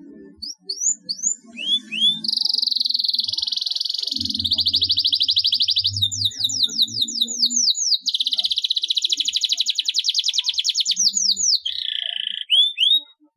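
Domestic canary singing: a few short rising chirps, then long rolls of very fast repeated notes lasting several seconds each, with a brief break in the middle, ending in short chirps again.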